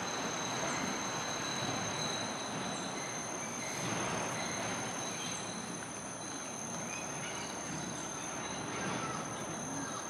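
Rainforest ambience: a steady rush of noise with a steady high-pitched insect drone over it, and a few faint, short, high chirps.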